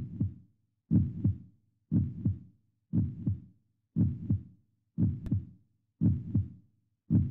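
Heartbeat sound effect: slow, steady paired low thumps (lub-dub) about once a second, with silence between beats.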